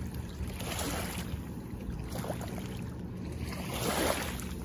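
Low steady drone of a distant tour boat's motor across the lake, under wind that swells in gusts about a second in and again near the end.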